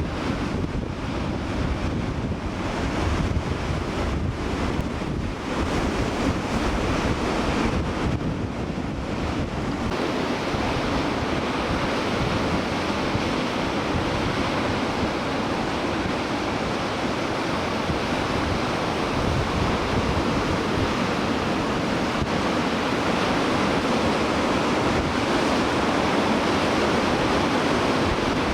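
Ocean surf breaking and washing, with wind buffeting the microphone. About ten seconds in, the gusty low rumble gives way to a brighter, steadier rush of white water.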